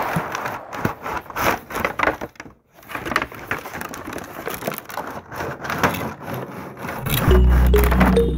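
Irregular clicks and crackles, with a brief gap partway through; music with a steady beat comes in near the end.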